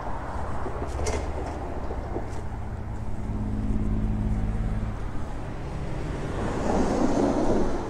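Road traffic passing: a motor vehicle's low, steady engine hum for several seconds, then a louder rushing swell near the end as more traffic goes by. A few short clicks come in the first seconds.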